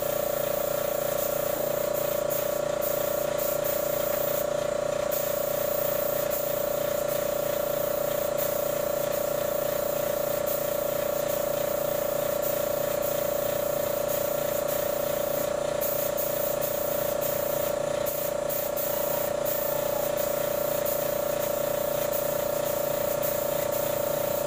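Air compressor running steadily with a constant motor hum and a faint regular pulsing, while a spray gun fed by it hisses.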